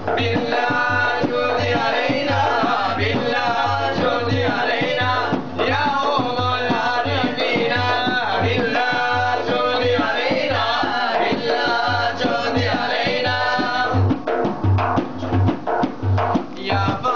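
Young men's voices singing a Turkish ilahi together over a steady frame drum beat. About fourteen seconds in the singing breaks off and the drum carries on alone with quicker, sharper strokes.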